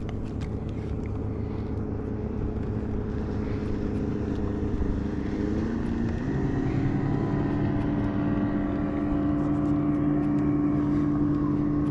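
A motorboat engine running steadily and growing louder, its pitch rising and settling higher about six seconds in.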